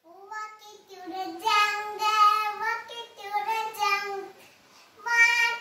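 A young girl singing a nursery rhyme solo and unaccompanied, in short sung phrases with brief pauses between them.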